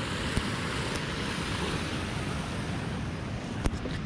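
Steady rush of wind and small surf waves washing onto a sandy shore, with wind buffeting the microphone. A sharp click about three and a half seconds in.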